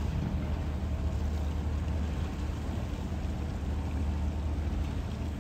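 Steady low engine hum from a boat, with an even background hiss.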